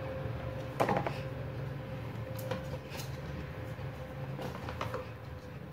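A hand pressing cooked rice down in a metal pot: soft rustling with a few light knocks against the pot, over a steady low hum.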